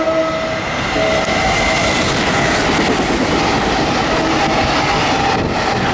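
Container freight train hauled by a JR Freight EF210 electric locomotive passing close at speed. A steady loud rush and rumble of wheels on rail as the locomotive and then the container wagons go by.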